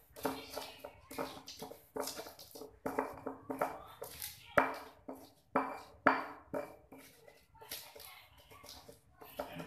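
A metal utensil clinking, knocking and scraping against cookware in irregular strokes, each with a brief ring, several louder knocks in the middle.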